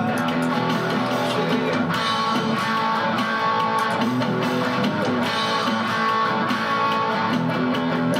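Song with guitars: strummed guitar and an electric guitar playing steadily.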